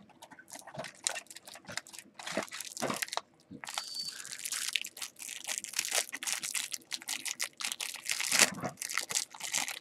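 Clear plastic wrapper around a stack of trading cards crinkling as it is worked open by hand: scattered crackles at first, then dense, continuous crinkling from about four seconds in.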